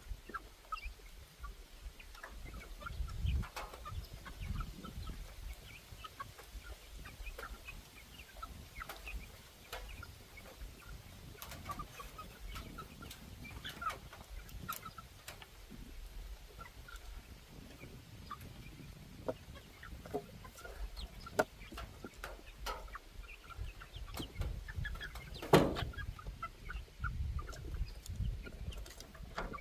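A flock of chickens clucking, many short clucks overlapping. A single loud knock sounds near the end.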